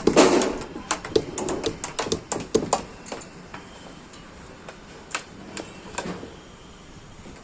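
A rapid, irregular run of sharp knocks and clicks for about three seconds, then a few scattered single knocks.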